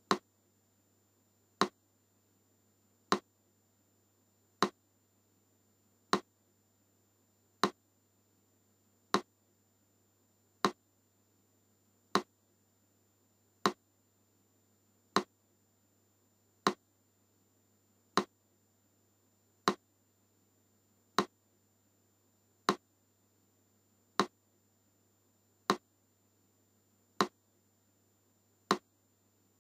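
Metronome ticking slowly and evenly, one sharp click about every one and a half seconds (about 40 beats a minute), over a faint steady hum.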